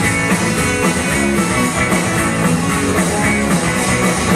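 Rock band playing live, an instrumental passage without vocals: electric guitar over a steady, driving drum beat.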